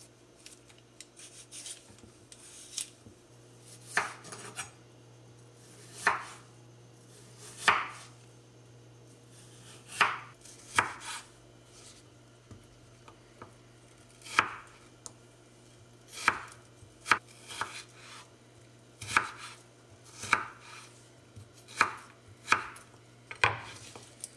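Knife cutting a raw peeled potato into fry-sized sticks on a wooden cutting board: about sixteen separate sharp strokes of the blade through the potato onto the board, spaced irregularly one to two seconds apart.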